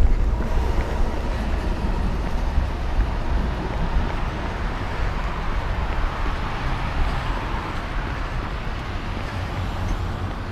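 City street traffic noise heard over low wind rumble on the microphone while running, swelling a little about six to seven seconds in as a car goes by on the street.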